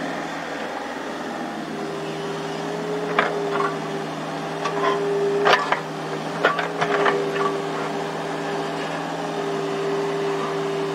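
Excavator diesel engines and hydraulics running together under load: a steady hum with a whining tone that swells and eases as the machines work. A string of sharp metal clanks and knocks from the digging sounds a few seconds in.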